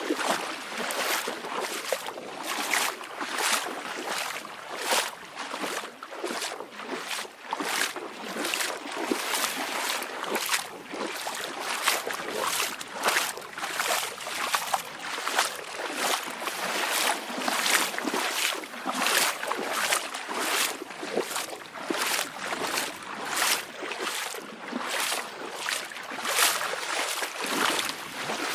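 Shallow beach waves lapping and splashing, with quick irregular splashes a few times a second and no lull between them.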